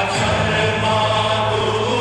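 Recorded song playing loudly for a group dance: voices singing in a choir-like, chanting style over a steady instrumental backing.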